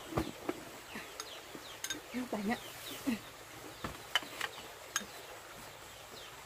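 Birds chirping in short falling calls, mixed with scattered light clinks and knocks and a brief low voice-like sound about two to three seconds in.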